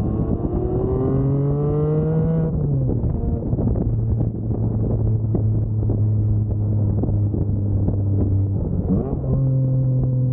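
Porsche 718 Spyder's 4.0-litre flat-six engine and exhaust, revs rising for about two and a half seconds before a sudden drop in pitch at a gear change. It then settles into a steady low drone, with another brief change in pitch near the end.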